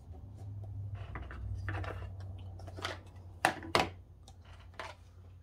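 Plastic ink pad cases being handled and set down on a craft mat: soft rustling, then a few sharp plastic clicks about three and a half seconds in, over a low steady hum.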